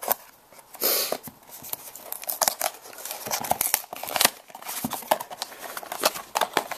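A small cardboard blind box being handled and its flap pried open: cardboard scraping and tapping, with a short burst of rustling about a second in and busier scraping and clicking toward the end.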